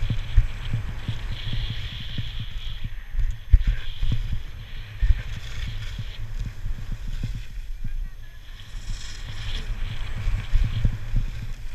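Wind buffeting an action camera's microphone during a fast ski descent, a steady rumble with irregular thumps, while skis scrape and hiss over hard-packed snow in turns that come and go every second or two.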